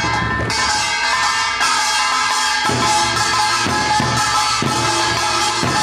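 Folk percussion band playing drums in rhythm, with ringing held tones sounding over the beat.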